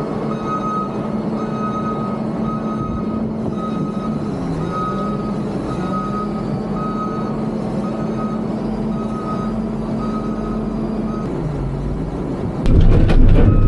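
Wheel loader running under load while its back-up alarm beeps steadily, a little under twice a second; the engine note dips briefly twice as it manoeuvres, and the beeping stops about 11 seconds in. Near the end a louder low rumble comes in.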